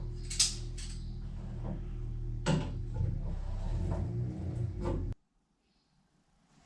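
Shower pump running with a steady electric hum as the shower is turned on, with water hiss and a few sharp clicks or knocks; the sound cuts off suddenly about five seconds in.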